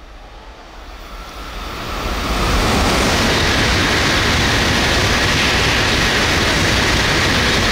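N700A Shinkansen high-speed train passing through at about 275 km/h. A rush of air and running noise builds over the first two seconds or so as the train approaches, then holds loud and steady while the train goes by.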